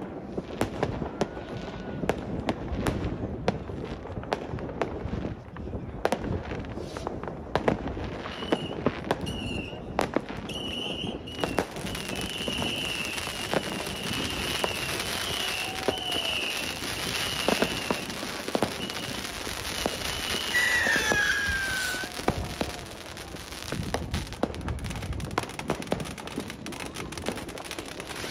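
New Year's Eve fireworks: rockets and firecrackers going off in a steady run of irregular bangs and crackles. A high wavering whistle runs through the middle, and a single whistle glides down about two-thirds of the way in.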